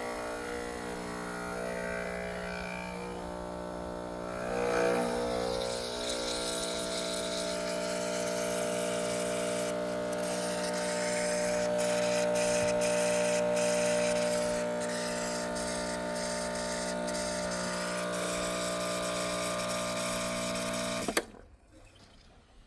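Breville Barista Express espresso machine's vibratory pump humming steadily while it pushes water through the coffee during a shot, then switching off abruptly with a click near the end.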